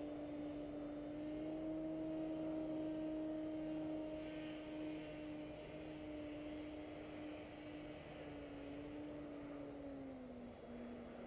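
Distant paramotor engine droning steadily as the powered paraglider flies overhead, its pitch dropping a little near the end.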